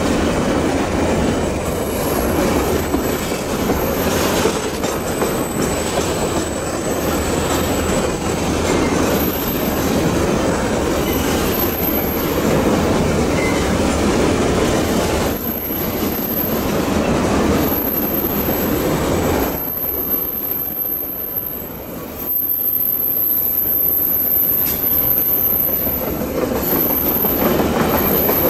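Long train of coal hopper wagons rolling past on a curve: a steady rumble of wheels on rail. A thin, very high wheel squeal comes and goes, and holds nearly steady through the second half.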